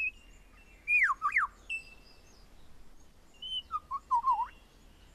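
Superb lyrebird singing: loud whistled notes that slide down and back up, one group about a second in and another near four seconds.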